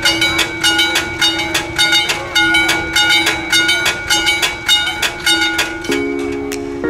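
Level crossing warning bell ringing in rapid, even strokes as a narrow-gauge train moves off across the crossing. Music comes in near the end.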